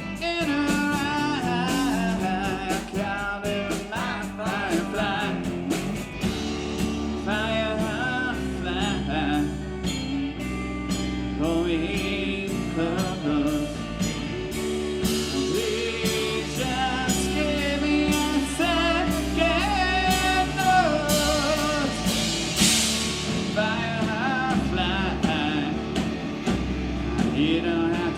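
A live band playing a song: bass and drums under a wavering lead melody, the band filling out about six seconds in, with a cymbal crash about 22 seconds in.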